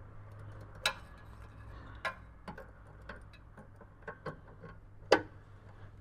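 Hand tools clicking and knocking on metal while a part is unbolted and worked loose from a car's rear suspension: irregular sharp clicks, the loudest about a second in, about two seconds in and just after five seconds, over a low steady hum.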